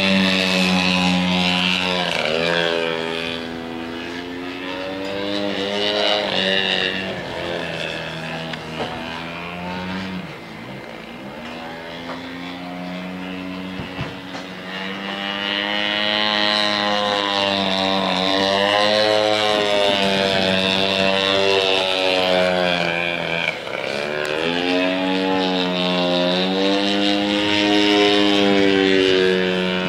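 The 100cc two-stroke gasoline engine and propeller of a large-scale radio-controlled Yak 55 aerobatic model in flight, its note rising and falling with throttle changes and passes. It is quieter for a few seconds in the middle and louder again near the end.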